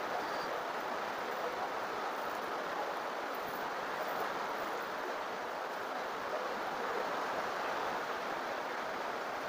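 Heavy rain falling on a tin roof: a steady, dense rush of noise with no let-up.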